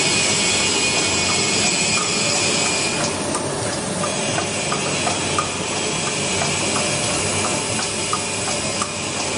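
Medical gauze cutting and folding machine running: a steady hiss with a high whine, and light mechanical ticks about twice a second. The whine drops out for about a second partway through.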